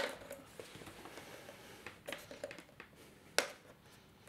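Fingers and fingernails prying at the small plastic cover over the tripod socket on the back of a Pure Jongo T6 wireless speaker: faint scraping with a few sharp clicks, the loudest about three and a half seconds in.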